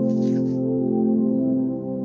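Soft ambient background music of long, sustained tones. In the first half second, a brief rustle of masking tape being pulled and pressed down.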